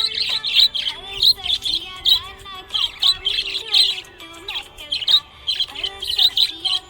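Budgerigar chirping in quick, sharp chirps, about two to three a second, with warbling in between.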